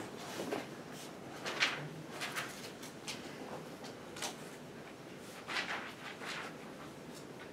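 Quiet room tone broken by scattered short knocks, clicks and rustles, a dozen or so at uneven intervals, from people and things being handled and moved.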